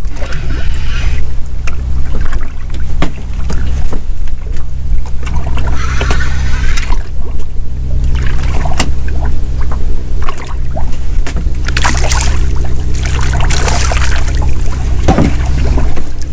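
Small boat's engine running steadily at a low hum, with irregular bursts of hissing water noise over it.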